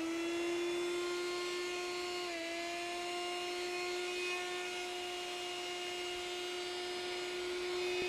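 A household appliance's electric motor running steadily at a high whine with a rushing air noise, its pitch dipping briefly about two seconds in.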